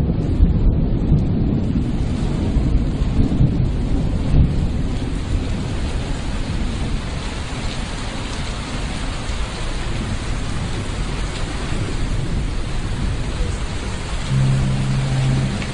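Thunderstorm: steady heavy rain with rolling thunder, the rumble strongest in the first few seconds. Near the end a low held note comes in as the music begins.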